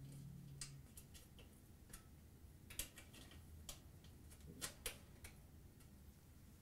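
Faint, irregular small clicks and metal ticks as a 1/4-inch nut driver tightens the screws holding a dryer high-limit thermostat to the sheet-metal heater housing.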